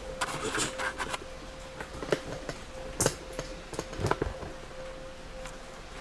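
Handling noise: scattered sharp clicks and knocks, a cluster in the first second and a few more between two and four and a half seconds in, over a steady thin hum.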